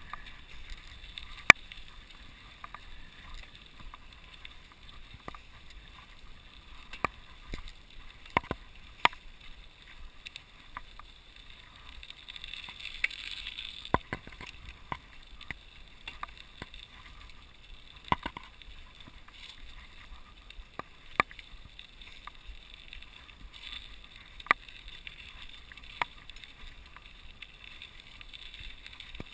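Mountain bike riding along a snow-covered road: the tyres give a steady hiss in the snow. Sharp clicks and knocks come every few seconds as the bike jolts over bumps, the loudest about a second and a half in.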